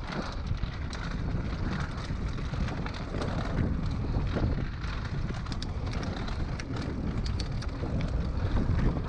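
Mountain bike riding down a dirt trail: wind buffeting the microphone and a steady rumble of tyres over dirt and rock, with frequent sharp clicks and rattles from the bike and stones.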